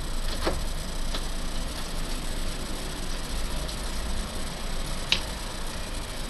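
Capsule coffee machine running, a steady hum with a few light clicks, the sharpest about five seconds in.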